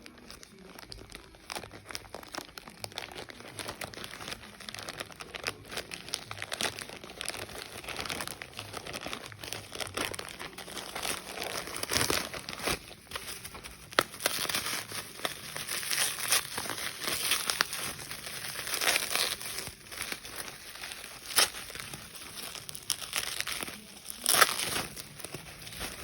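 Packaging being handled and crinkled while a calculator is unboxed: irregular rustling and crackling throughout, with a few sharper, louder crinkles in the second half.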